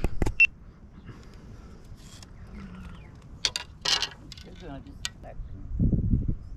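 Handling noises from a hand-pole fishing rig being worked: a few sharp clicks, a short rustle about four seconds in, and a dull low rumble near the end.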